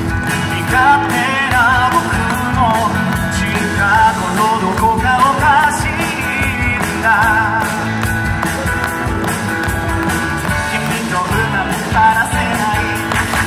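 A male singer singing live into a handheld microphone over amplified instrumental backing music.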